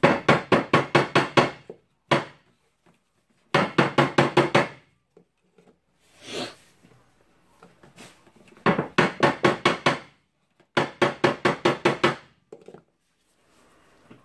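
Makita 9565 angle grinder's motor housing rapped hard against a metal vise again and again in four bursts of rapid knocks, about five a second, to shake loose the field coil. The field is stuck tight, which the repairer puts down to it being burned.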